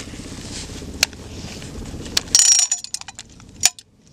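Metal clicks from an M32A1 40mm revolver grenade launcher's cylinder and frame being worked during reloading. A few separate clicks come first, then a brief ringing metallic rattle about two and a half seconds in, a quick run of clicks, and one sharp click near the end before the sound drops away suddenly.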